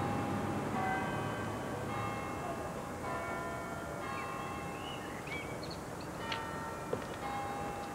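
Church bells ringing, a new stroke about every second, each note dying away under the next.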